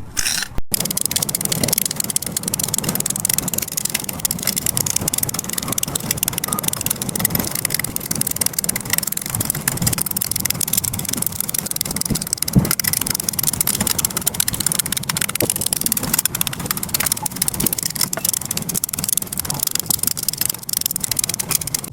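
Plastic perler (fuse) beads being placed onto a pegboard: a dense, continuous stream of small clicks and rattles.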